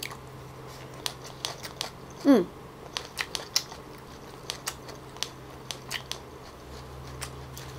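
Close-miked chewing of bánh căn, small Vietnamese rice-flour pancakes: irregular small crunches and wet mouth clicks, a few a second, with a brief falling "mm" a little over two seconds in.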